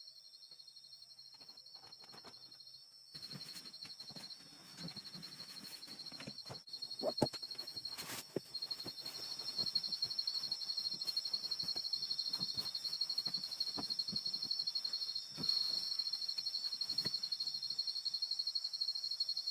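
Insects trilling in a steady, high, fast-pulsing chorus. From about three seconds in, scattered clicks and knocks come through over a faint hiss.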